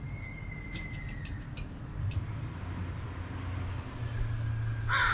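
Light clicks of a tool working a bicycle frame's bottle-cage bolts as a battery mount is fastened, over a steady low hum that sets in about two seconds in, with a brief louder sound at the very end.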